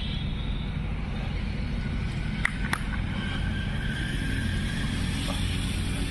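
A football being kicked twice in quick succession, two sharp knocks about a third of a second apart, over a steady low outdoor rumble.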